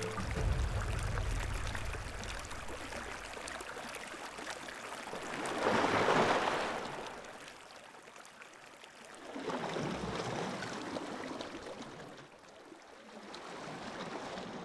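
River water flowing and lapping in a shallow river. It swells louder about six seconds in, and again near ten and fourteen seconds.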